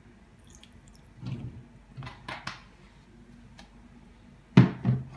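Soy sauce poured from a bottle onto raw chicken pieces in a pot, with faint wet dripping and squishing and some handling noise. Near the end come two sharp knocks in quick succession.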